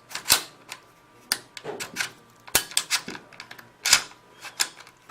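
Irregular sharp clicks and knocks, about ten in all, from hands working the parts of a retractable paintball-marker buttstock and its locking mechanism.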